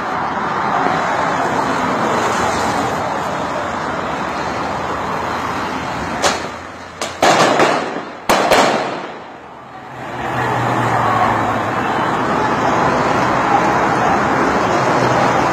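Steady rumble of a moving commuter train, broken between about six and nine seconds in by several loud, sharp bangs of firecrackers going off.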